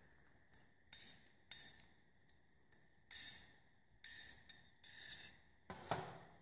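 Metal spoon scraping and clinking against a ceramic bowl as it stirs a dry white powder, in a string of short, uneven strokes, with a heavier knock near the end.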